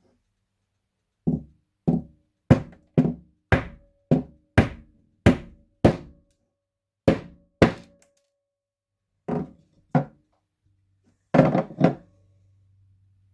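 A hammer striking repeatedly: about fifteen sharp blows, roughly two a second with a couple of short pauses, each with a brief metallic ring.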